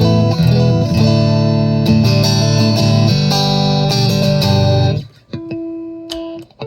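Vintage 1979 Fender Stratocaster electric guitar played loud through an amplifier: about five seconds of strummed chords and notes, then a few single notes left ringing. A play-test of the freshly reassembled, restrung guitar.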